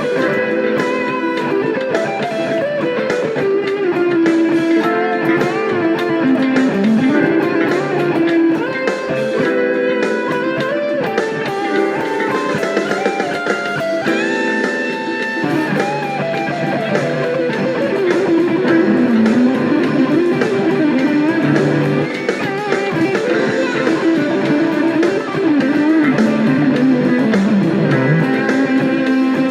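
Electric guitar through a Dunlop Fuzz Face Mini fuzz pedal, playing improvised lead lines in A minor, with string bends and sustained notes.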